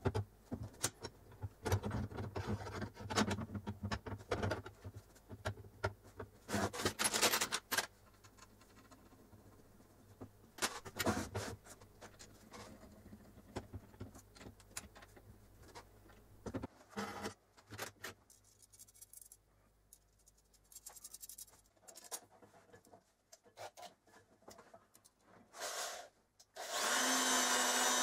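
Steel rods and small metal parts handled on an aluminium plate: repeated clicks, knocks and scraping, thinning out after about twelve seconds. Near the end a power drill starts and runs steadily.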